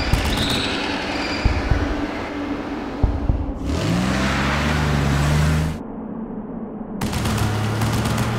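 Cartoon monster truck engine sound effect: a few low thumps, then an engine revving up and running steadily with a rushing noise, cutting out briefly before a second engine drone starts near the end.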